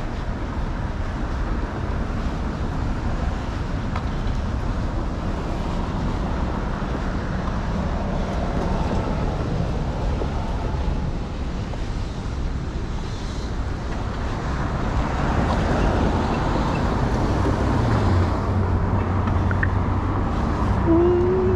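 City street traffic: a steady low rumble of cars on a wide road, growing louder over the last few seconds, with a steady low engine hum coming in late on and a brief wavering tone at the very end.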